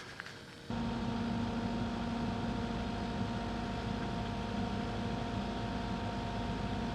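Cat 308E2 excavator's diesel engine and hydraulics running steadily under load with a steady hum, cutting in abruptly about a second in, as the arm lifts the stuck Willys.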